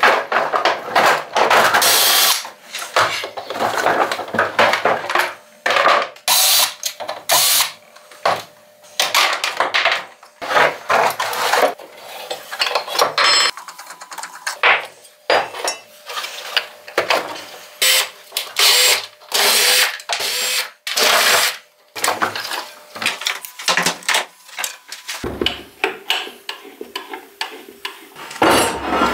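Workshop metalworking noise: short bursts of power tools working steel alternating with sharp clanks and knocks of metal parts, in quick irregular succession.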